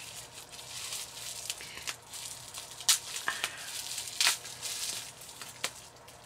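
Plastic bubble wrap crinkling and crackling as it is unwrapped from a small item by hand, with a few sharp snaps, the loudest about three seconds in and again just after four seconds.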